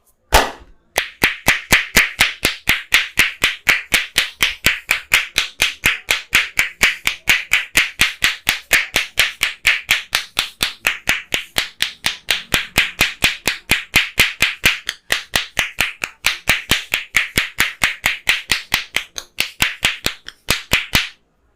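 Hand-clapping strikes of a barber's head massage: sharp claps in a fast, steady rhythm, about four or five a second. They pause briefly twice and stop shortly before the end.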